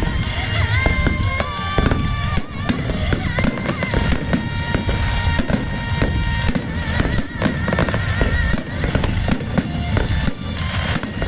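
Fireworks going off in rapid succession, a dense run of bangs and crackling, with music playing throughout.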